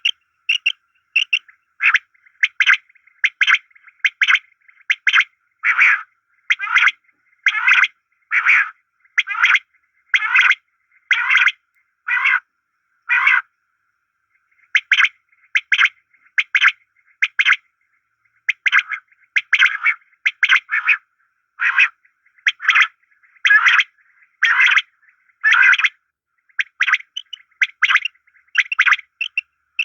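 A pair of animals making short, rasping calls over and over, about one or two a second, with brief pauses around the middle.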